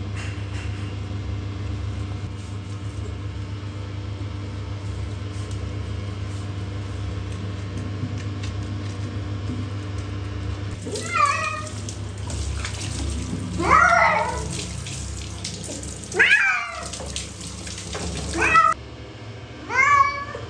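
Persian cat meowing loudly about five times in the second half, each a short bending call, over a steady low mechanical hum.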